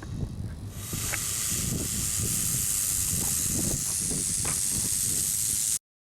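Bullsnake giving a long, steady defensive hiss, air forced out through its glottis, starting about a second in and cut off abruptly near the end. Wind rumbles on the microphone underneath.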